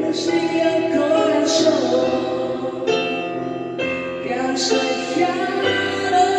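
Romantic ballad music, an intro passage with no sung lyrics: held melody notes over sustained chords that change about every second.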